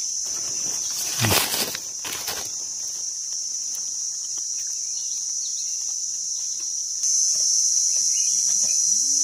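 Steady, high insect drone of a forest chorus, growing louder about seven seconds in, with a brief rustle about a second in.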